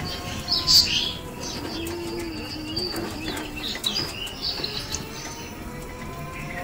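Birds chirping, with a low wavering coo about two seconds in and a brief sharp noise just before it.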